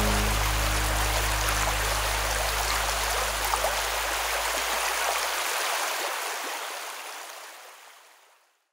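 Shallow stream running and splashing over a low line of rocks, a steady rushing. A low held tone under it dies away over the first six seconds, and then the whole sound fades out near the end.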